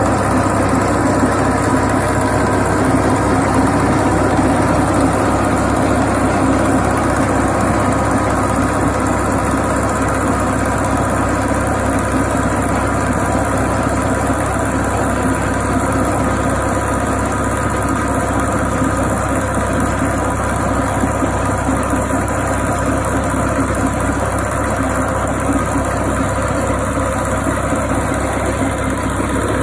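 Tractor's diesel engine running steadily under load while it drives a tractor-mounted chain trencher that is cutting a trench through soil.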